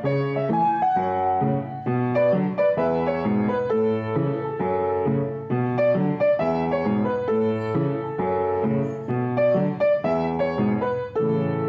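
Background piano music: a flowing melody of single notes over lower notes, played at an even pace.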